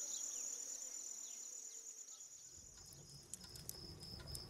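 Faint chirping of crickets as a steady high trill; about three seconds in it shifts to a slightly lower, pulsing chirp over a faint low rumble.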